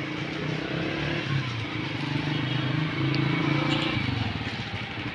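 Small motorcycle engine running, its pitch rising about three seconds in and dropping soon after, then settling into a fast, even putter near the end. An even hiss runs underneath.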